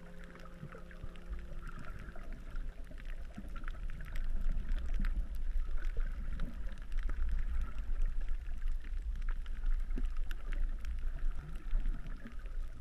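Underwater sound through a camera's waterproof housing: a low rumble of moving water with many scattered faint crackling clicks, growing a little louder about four seconds in.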